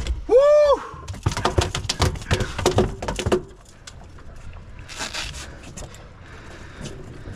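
A freshly landed little tunny thrashing on the boat's deck, its tail beating in a rapid run of knocks for about two seconds, with a shorter flurry a little later. A short rising-and-falling cry comes just before the knocking.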